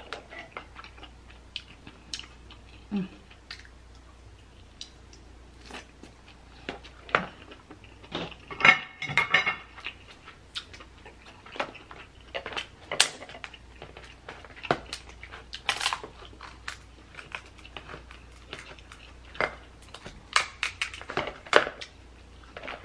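Eating sounds from a king crab seafood boil: chewing, with many sharp clicks and cracks as king crab leg shells are broken and cut with kitchen shears, and a denser crackling about a third of the way in.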